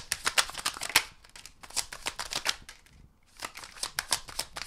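Tarot deck being shuffled by hand: a rapid run of card clicks and flicks, which stops briefly a little before halfway and then starts again.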